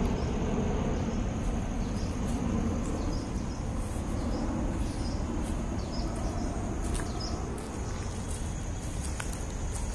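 Outdoor woodland ambience: a steady high-pitched insect trill with short chirps repeating over it, above a low rumbling noise.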